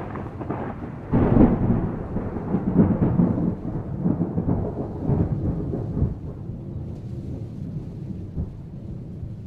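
Rolling thunder: a sudden loud crack about a second in, then rumbling that swells several times and dies away over the last few seconds.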